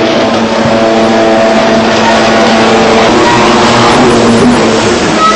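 Jet ski engines running loud and steady at high revs, the pitch shifting slightly about three to four seconds in.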